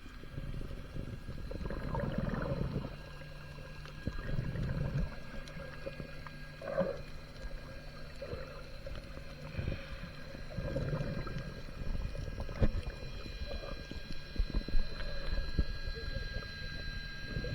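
Muffled underwater sound: irregular low gurgling swells and a few sharp knocks over a steady faint high whine.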